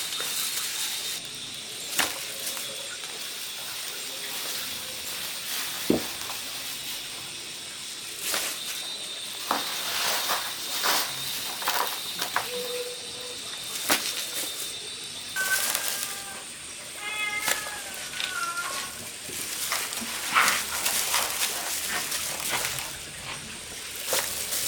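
A few short, pitched animal calls about two thirds of the way in, among scattered sharp clicks and knocks, over a thin steady high tone.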